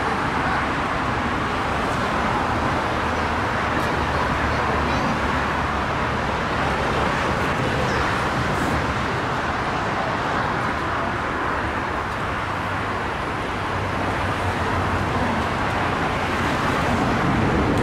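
Distant jet airliner engines at takeoff power during the takeoff roll: a steady, even roar.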